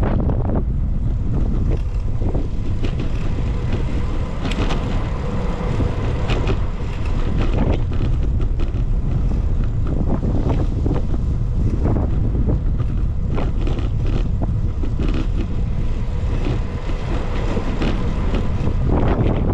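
Wind rumbling on the microphone of a camera on a moving bicycle, with road traffic and frequent small clicks and rattles.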